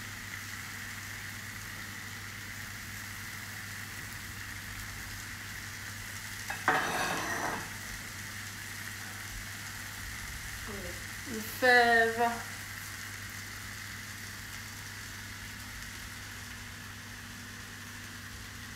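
Peas, asparagus and sliced potatoes sizzling steadily in a skillet on a gas burner, with a brief louder noise about seven seconds in.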